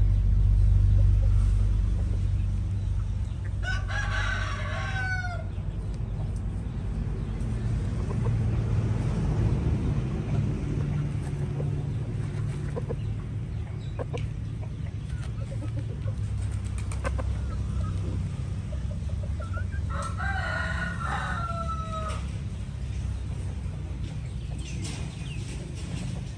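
A rooster crows twice, about four seconds in and again about twenty seconds in, each crow a long call that droops at the end. A steady low rumble runs underneath.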